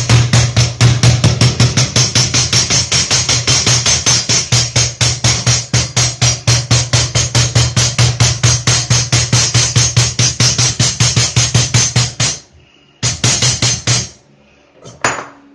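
Hammer rapidly striking a caulking iron, metal on metal at about four or five blows a second, packing the lead joint of a toilet drain flange by hand. The steady run of blows stops about twelve seconds in, and a second short burst follows about a second later.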